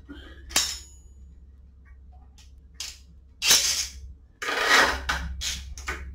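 A sharp metallic click, then two half-second rasps and a few quick knocks, as a safety strap is fitted through the frame of a Torin Big Red motorcycle jack.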